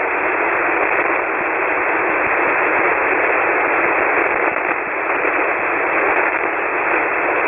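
Shortwave receiver tuned to single sideband on the 40-metre band (7.188 MHz) giving out a steady, narrow hiss of band noise while the other station is not transmitting.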